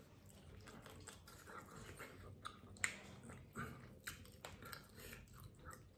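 A person chewing pieces of crispy chicken fry with the mouth closed: faint, irregular crunches and wet clicks.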